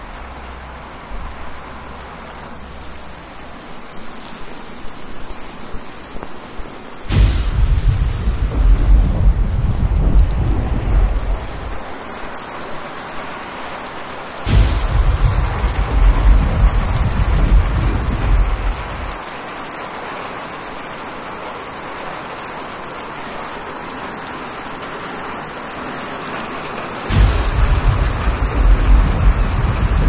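Heavy rain falling steadily, broken by three sudden thunderclaps, each followed by a deep rumble lasting four or five seconds.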